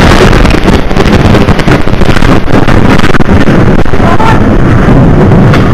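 Chemical factory explosion picked up by a shop's CCTV camera: a sudden very loud blast, then a loud rushing noise full of crackles as debris falls.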